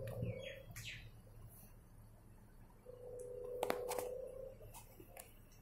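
Small DC gear motors of a voice-controlled robot car whining as they run, once briefly at the start and again for about a second and a half in the middle, with a few sharp clicks during the second run.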